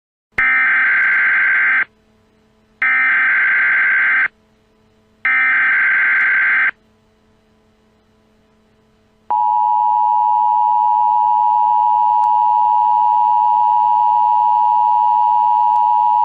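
Emergency Alert System tones: three short bursts of warbling digital header data about a second apart, then, about nine seconds in, the steady two-tone EAS attention signal. Together they mark the start of an emergency alert broadcast.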